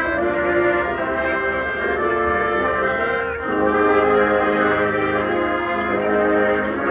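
High school marching band playing, its brass section holding sustained chords and moving to a new chord about three and a half seconds in.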